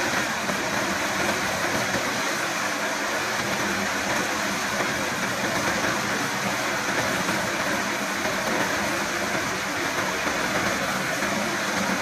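Case compact track loader's diesel engine running under load while its Centerline HS-57 hydraulic manhole cutter grinds a ring through asphalt around a manhole. The machine noise is steady and even, with no breaks.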